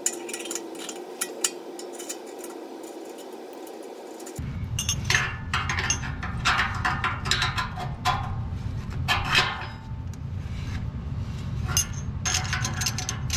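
Metal clinking and scraping as exhaust clamp nuts and bolts are handled and started by hand on a muffler being fitted. A steady low rumble comes in suddenly about four seconds in, under denser clinks.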